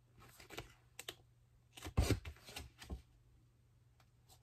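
A large picture book being handled and its pages turned: a few short papery rustles and taps, the loudest about two seconds in.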